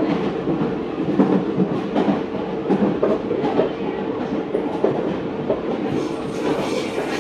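Meitetsu 4000 series electric train running at speed, heard from inside the passenger car: a steady hum with one constant tone, and the wheels clicking over rail joints. The upper hiss grows near the end.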